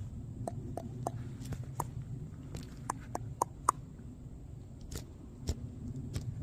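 About a dozen sharp, irregular clicks or snaps, most of them in the first four seconds, over a steady low rumble.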